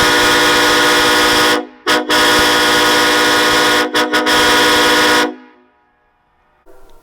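Vehicle air horn sounding several tones together in loud blasts. There is a long blast, a brief break with one quick toot, another long blast, two quick toots, and a last blast that cuts off a little over five seconds in.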